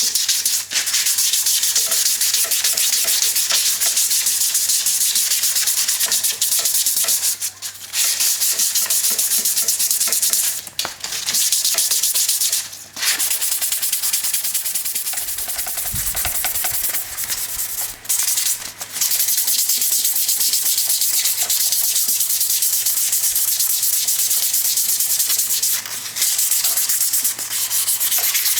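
Sanding on wood: a steady, high scratchy noise with a handful of brief breaks.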